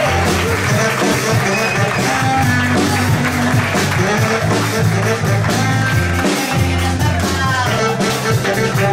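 Live band playing an upbeat pop-rock tune, with electric bass, strummed ukulele and bowed cello.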